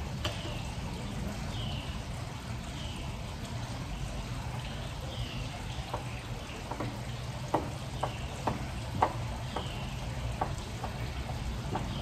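Light clicks and taps from hand work on a video doorbell being fitted to a door frame, coming in an uneven run from about six seconds in, over a steady hiss. A short falling chirp repeats every second or so.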